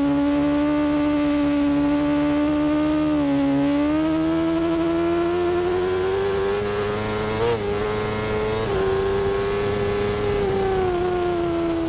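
BMW superbike's inline-four engine running hard at high revs on track, heard from on board. Its pitch dips briefly about three seconds in, climbs steadily, warbles briefly about seven and a half seconds in as it changes up from third to fourth, then eases down slightly near the end.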